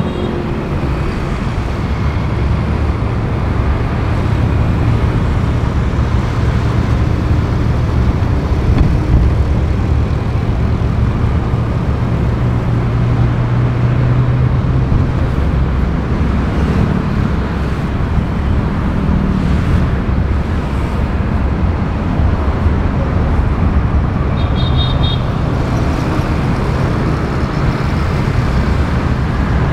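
Road and traffic noise from a vehicle driving along a city street, picked up by a microphone outside the vehicle: a steady low engine and tyre rumble. A brief high-pitched beeping comes about 25 seconds in.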